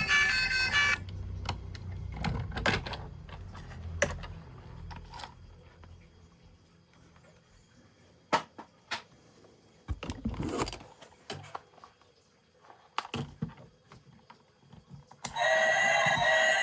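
Light clicks and knocks of plastic toys being handled, scattered and uneven, with a low rumble fading out over the first few seconds. A loud pitched sound stops about a second in, and another loud pitched sound starts near the end.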